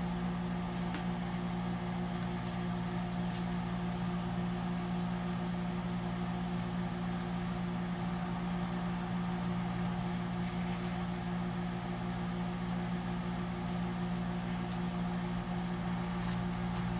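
Microwave oven running with a steady, even hum while cooking oysters.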